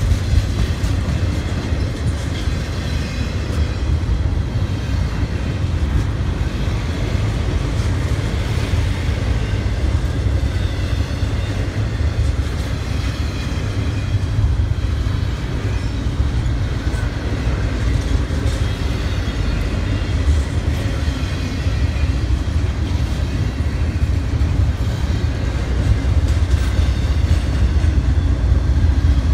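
Freight train rolling past, a steady heavy rumble of wheels on the rails, unbroken throughout.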